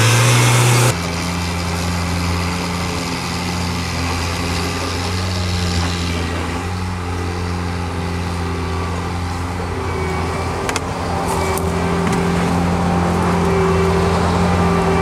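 Mudd-Ox amphibious tracked vehicle's engine running steadily at low speed as it crawls on Ripsaw tracks. Its note changes abruptly about a second in. Two short sharp knocks come a little past the middle, and the engine note firms up near the end.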